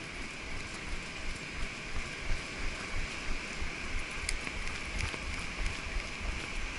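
A horse's hooves thudding on wet sand at a steady pace, about three beats a second, under a steady rushing hiss.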